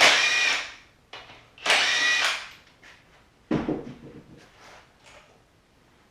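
A handheld power tool run in two short bursts, each about half a second, its motor whining up and then down. A single knock follows a little past the middle, then light clatter.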